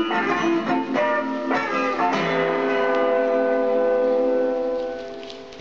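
Guitar music without singing: a few plucked notes, then a final chord that rings on and fades away near the end.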